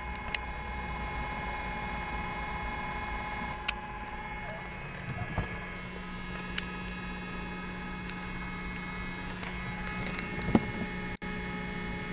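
Steady machine and electrical hum with several steady high whining tones, a lower hum coming in about halfway through, a few sharp clicks, and a louder knock near the end.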